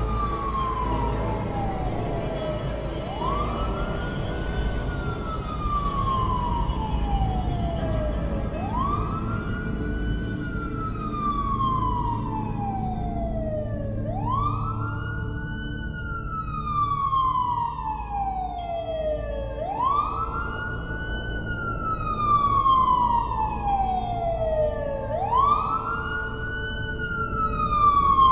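A wailing siren that climbs quickly, then falls slowly, repeating about every five and a half seconds over a steady low rumble.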